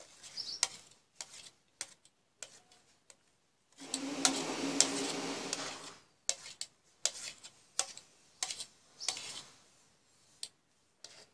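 A spoon scraping and tapping on a plastic plate as chopped onion is pushed off it into a glass bowl. The result is a string of sharp, irregular clicks, with one longer scrape of about two seconds near the middle.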